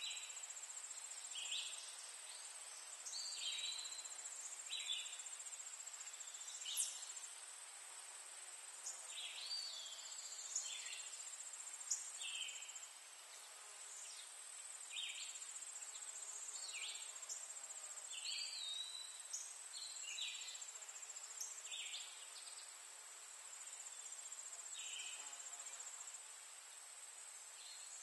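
A steady, high-pitched insect trill, typical of crickets, with short chirps scattered through it about once a second.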